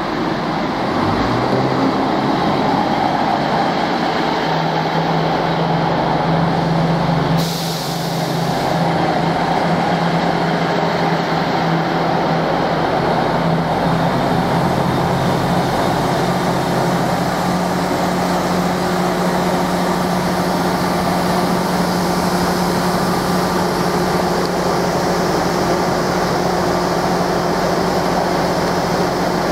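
Class 158 diesel multiple unit's underfloor diesel engines running steadily beside the platform, with a short hiss of air, typical of the air brakes, about seven seconds in.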